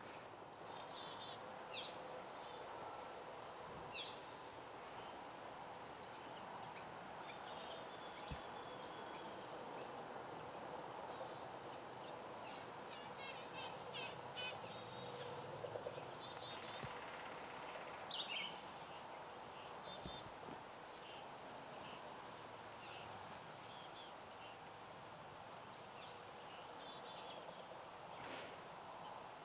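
Wild birds chirping and calling in many short, high notes and rapid trills, with the busiest, loudest bursts about five seconds in and again about seventeen seconds in, over a faint steady outdoor background.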